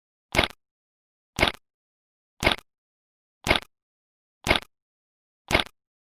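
A 'bad signal' sound effect: short bursts of crackling static, evenly spaced about once a second, with silence between, six bursts in all.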